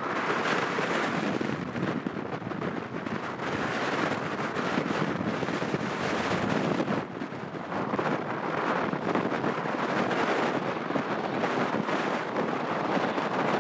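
Steady jet noise from an Embraer E190's two GE CF34-10E turbofan engines as it lands and rolls out on a wet runway, mixed with strong gusting wind buffeting the microphone.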